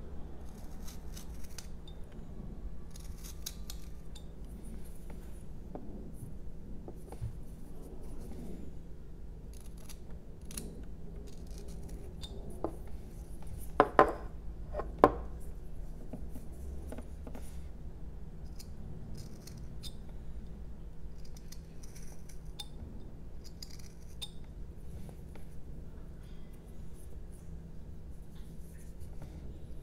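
Carving knife slicing thin shavings from a jelutong block in short, scratchy strokes, with two or three sharp clicks close together about halfway through.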